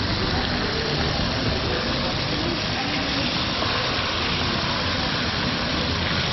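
A steady hiss with indistinct voices faintly beneath it, even in level throughout.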